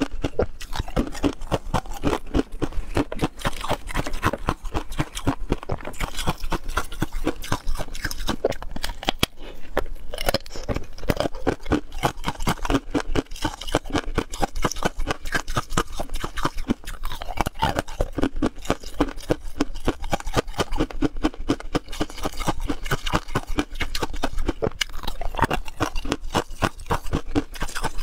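Ice being bitten and chewed close to a clip-on microphone: a steady run of many sharp crunches and cracks.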